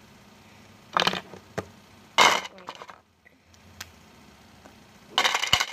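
Plastic glue pens clattering and knocking against a glass tabletop, in three short bursts: about a second in, about two seconds in and near the end, with a few light clicks in between.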